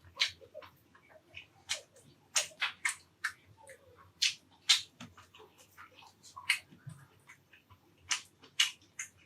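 Close-miked eating sounds: chewing and lip-smacking, with irregular wet clicks about two or three times a second, some much louder than others.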